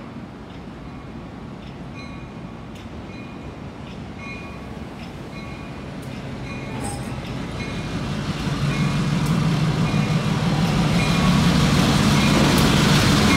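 Pair of LIRR MP15AC diesel switcher locomotives approaching, their engine sound growing steadily louder through the second half. A bell dings about twice a second throughout.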